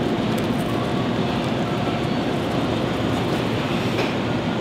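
Steady, even background hum and hiss, with a faint crinkle of a plastic snack wrapper about four seconds in.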